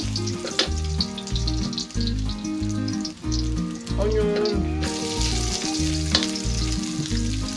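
Garlic and ginger sizzling in hot oil in an aluminium wok, stirred with a wooden spatula. About two-thirds of the way through, the sizzle gets louder as sliced onions go in. Background music with a steady beat plays underneath.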